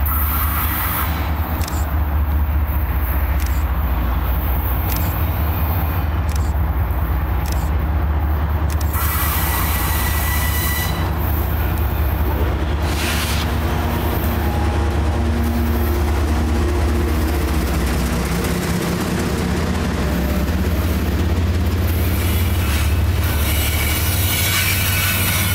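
Diesel-hauled freight train passing close by: the lead locomotive approaches with a steady low rumble and goes by about halfway through, then autorack cars roll past with continuous wheel and rail noise.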